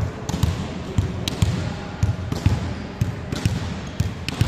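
Volleyball bounced repeatedly on a wooden sports-hall floor by the server before serving, a quick series of dull thuds.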